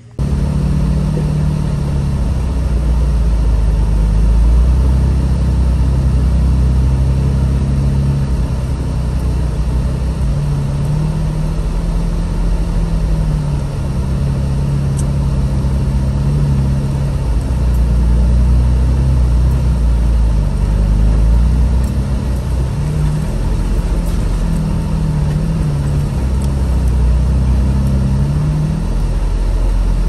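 Jeep Wrangler's engine and redone exhaust running while driving, the engine pitch rising and falling with the throttle over a steady low rumble.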